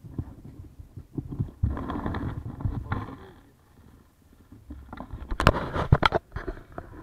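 Rustling, low rumbling and bumps of the microphone being handled, with a few sharp knocks about five and a half seconds in. No engine is running.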